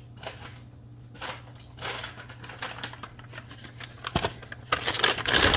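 Rummaging through stored containers and bags: scattered light knocks, clicks and rustling, busier and louder near the end.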